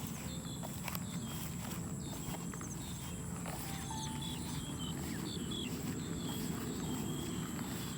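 Footsteps walking through a rice field over a steady low hum. Birds chirp short repeated calls and insects keep up a constant high thin buzz.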